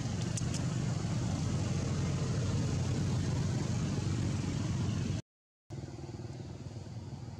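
Steady low rumble of an engine running. It cuts out briefly about five seconds in and comes back quieter.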